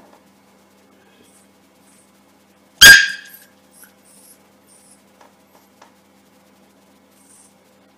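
A Yorkshire terrier puppy barks once, a single short, sharp bark about three seconds in, at its own reflection in a mirror.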